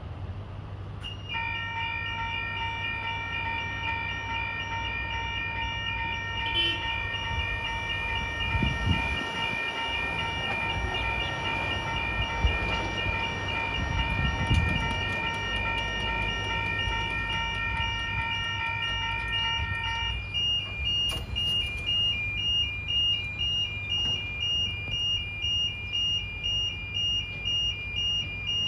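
Railway level crossing warning bells sounding as an electric train approaches: a steady ringing that about two-thirds of the way through changes to a pulsing ring of roughly one and a half beats a second.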